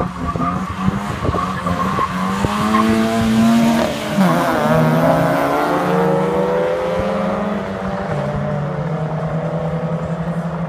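Two cars launching side by side in a quarter-mile drag race and accelerating hard, engine notes rising in pitch, with a gear change about four seconds in.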